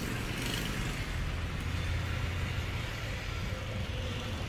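Steady low background rumble with an even hiss above it; no distinct tool sounds stand out.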